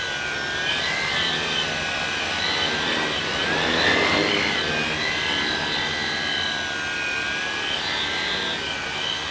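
Homemade tricopter's three brushless motors and propellers whining in flight, the pitch wavering as the throttle is worked. About four seconds in the sound swells and glides up in pitch as the craft comes close.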